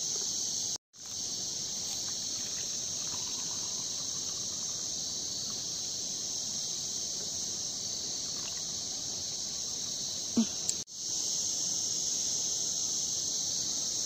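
Steady, high-pitched insect chorus drones on without a break, dropping out for an instant twice. One short, sharp sound stands out about ten seconds in.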